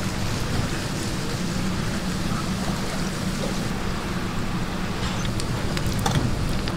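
Battered twigim (Korean tempura) deep-frying in a large pan of hot oil: a steady sizzle over a steady low hum, with a few sharp clicks about five to six seconds in.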